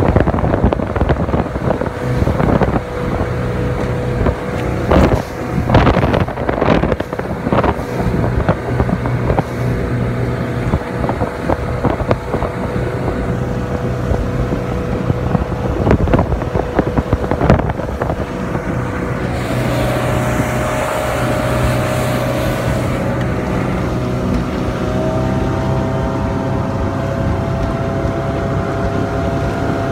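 A Monterey 180 bowrider's inboard/outboard engine drones steadily under way, with irregular thumps and wind on the microphone as the hull runs through chop. The engine note steps up slightly past the midpoint, and a rush of hiss comes briefly around then.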